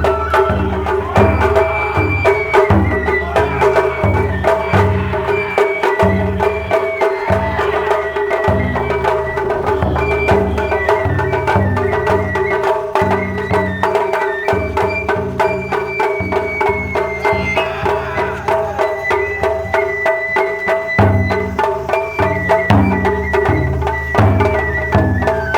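Japanese festival bayashi ensemble playing: taiko drums beat in repeated phrases under a dense run of quick sharp strikes, with a high bamboo-flute melody above.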